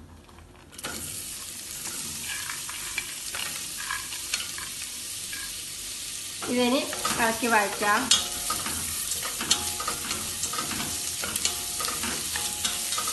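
Sliced onions and cashew nuts hit hot ghee in a stainless steel pot and start sizzling suddenly about a second in. They keep frying steadily while a wooden spatula stirs them, with small scraping clicks against the pot.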